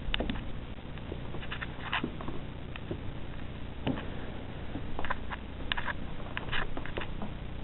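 Scattered soft clicks and scuffs at irregular intervals over a low steady hum: handling noise from a handheld camera being carried and panned around a room.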